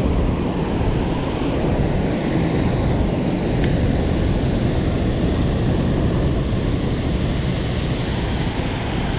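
Steady rush of water pouring from a dam's release gates in heavy flow, loud and unbroken, with one faint brief tick about three and a half seconds in.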